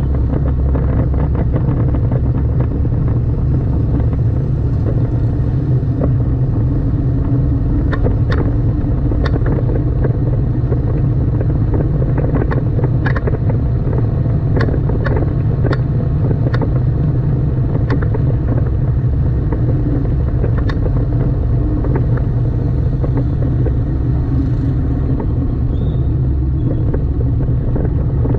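Steady low rumble of a car being driven on the road, from engine and tyres. Through the middle stretch come a dozen or so short, sharp, irregularly spaced clicks.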